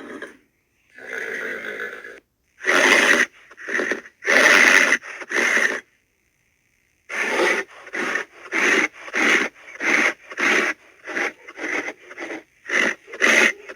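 Horse breathing: a few long, loud breaths, a short break, then a steady run of short breaths about two a second.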